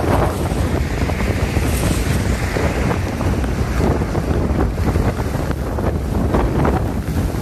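Steady rushing of floodwater after heavy rain, with wind buffeting the microphone.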